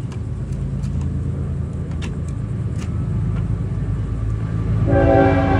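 Train running with a steady low rumble, and its horn sounding a sustained chord of several steady tones near the end.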